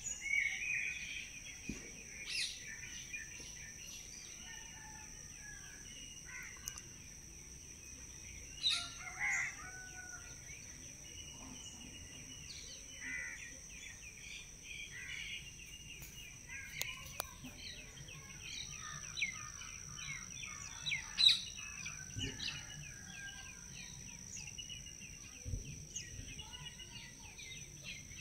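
Small birds chirping and twittering in many short, quick calls, over a steady high-pitched whine. A few sharp ticks cut through, the loudest about two-thirds of the way in.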